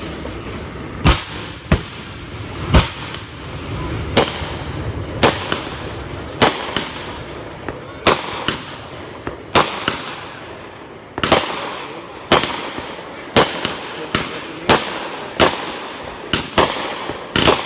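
Aerial fireworks going off: a rapid run of sharp bangs, often in close pairs, more than one a second, over a steady hiss.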